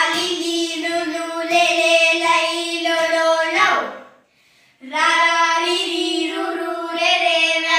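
Girls singing a Tamil reading chant in a steady held tune: two long phrases with a pause of about a second near the middle.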